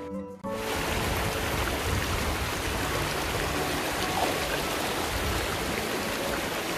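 Shallow river water rushing and splashing over stones, heard close to the surface. It cuts in suddenly about half a second in and runs on steadily.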